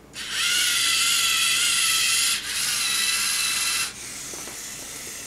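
LEGO Mindstorms EV3 servo motors whirring with a geared whine as the robot's arm lowers to set down its load. The whine rises slightly as it starts, breaks briefly about two and a half seconds in and stops just before four seconds. A quieter steady whir follows as the drive motors back the robot up.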